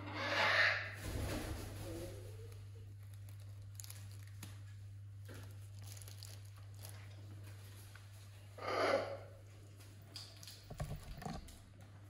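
Soft rustling and scraping of a fabric plush toy and blanket as a caique parrot pecks and tugs at it. Two short breathy hisses, about half a second in and again about nine seconds in, are the loudest sounds, and a few light thumps and clicks come near the end.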